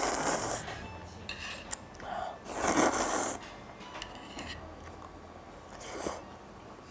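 Ramyeon noodles slurped from a bowl: a short slurp at the start and a longer, louder one about two and a half seconds in, with a smaller one near the end.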